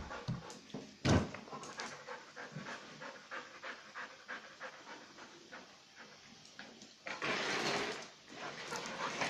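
Rottweiler panting in quick breaths close by, with a single knock about a second in and a louder rush of scuffling noise from about seven seconds in.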